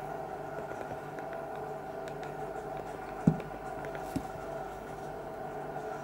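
Faint clicks from an Alcatel 2053D phone's keys as it is stepped through its menus, over a steady low hum, with two short low thumps about three and four seconds in, the first louder.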